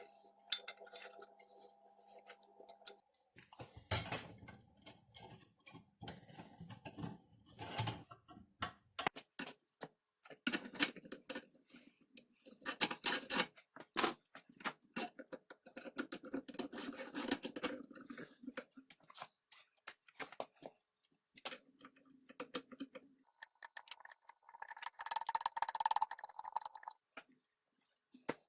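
Irregular clinks, taps and knocks of metal parts and hand tools being handled and fitted together, in scattered clusters with short gaps.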